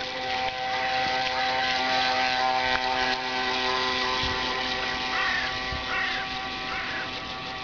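Small electric motor and drive shaft of an RC model runabout whining steadily as the boat runs, with water hiss from its wake; the owner describes the drive shaft as badly vibrating. Short falling chirps sound a few times near the end.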